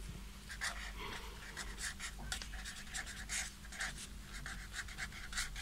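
Black marker pen scratching across paper in many short, quick strokes as a word is handwritten.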